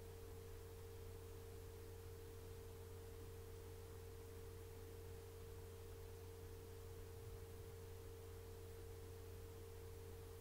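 Faint steady hum: one unchanging held tone with a lower drone beneath it, over light hiss.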